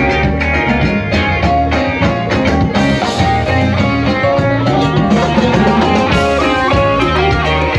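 Rock music with guitar and drums playing steadily.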